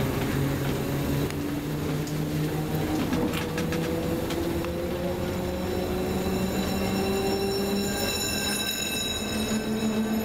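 Vintage 1500 V DC electric railcar running, its traction motor whine rising slowly in pitch as it gathers speed over the rumble of the ride. A brief run of clicks from the wheels comes about three seconds in.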